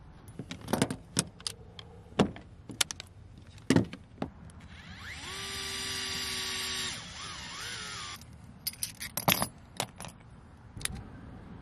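A DeWalt cordless electric screwdriver whirs for about two seconds in the middle, its pitch rising as it spins up, then gives a brief second burst, driving screws into plastic RC suspension parts. Sharp clicks and clinks of small metal tools and parts being handled come and go around it.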